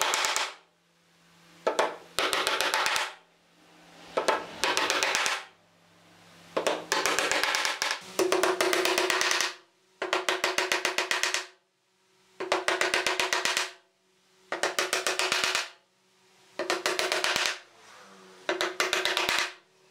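Claw hammer driving nails through pine blocks into a wooden board, in bursts of rapid blows about every two seconds with a ringing tone from the wood.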